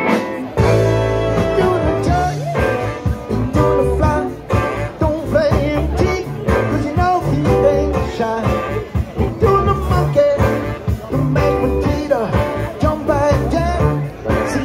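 Live rock band playing: electric guitars, bass and drums with a lead singer. A held chord gives way to the full band, bass and drums included, about half a second in.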